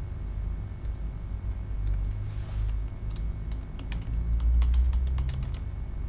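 Computer keyboard being typed on: a scattered run of key clicks, thickest in the second half, with a steady low rumble underneath.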